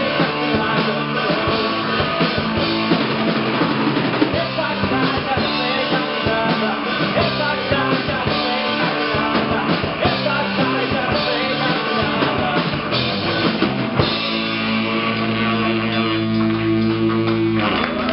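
Live rock band of electric guitars, bass and drums, with some singing, playing a song; about fourteen seconds in the busy playing gives way to a long held chord ringing out.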